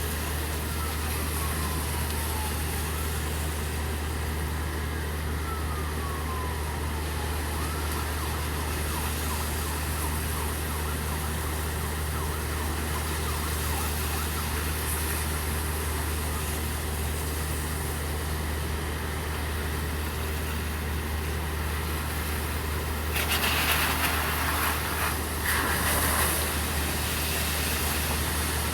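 Steady rain with an engine humming low and constant underneath, and a distant siren wailing faintly in falling sweeps during the first few seconds. About 23 seconds in a louder rush of hissing noise lasts a few seconds, like a car passing through water on the wet street.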